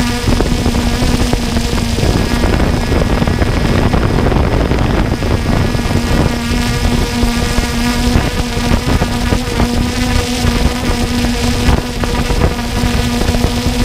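Multirotor drone's motors and propellers humming at a steady pitch, heard through the camera carried on the drone, over a constant rush of air noise.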